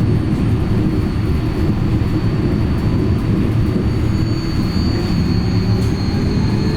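Vossloh Tramlink tram running along the track: a steady low rumble of wheels and running gear with a thin, steady high whine over it.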